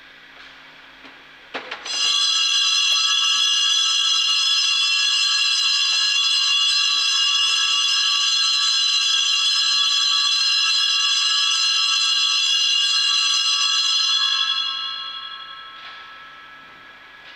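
Altar bells, a cluster of small hand bells, shaken continuously for about twelve seconds in a bright ringing of many steady high tones. They start abruptly after a couple of clicks and fade out near the end. The ringing marks the benediction with the Blessed Sacrament at the close of adoration.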